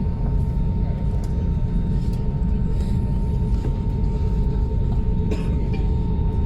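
Jet airliner cabin noise: a steady low roar of engines and airflow with a faint steady whine, and a few faint clicks.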